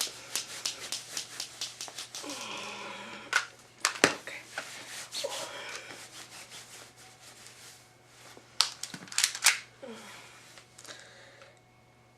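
Repeated clicks and clacks of an airsoft gun being handled, with a few sharper snaps about four seconds in and again near the end. Short wordless vocal sounds come in between.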